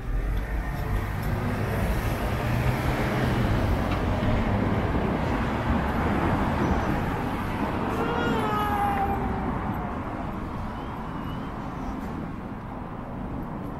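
Street traffic noise, growing louder over the first few seconds as a vehicle goes by and then easing off. About eight seconds in, a short high-pitched sound wavers and falls in pitch.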